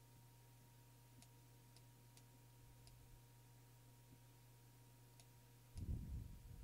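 Near silence: a handful of faint computer-mouse clicks, about six, spread unevenly through the quiet, over a steady low electrical hum. A brief, louder low-pitched sound comes near the end.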